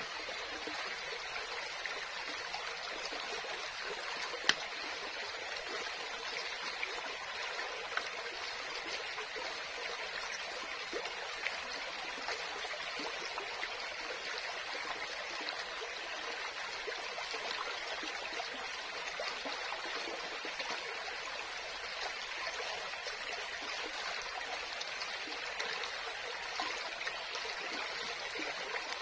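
Shallow rocky stream flowing and trickling over stones, a steady rush of water. One sharp click stands out about four and a half seconds in.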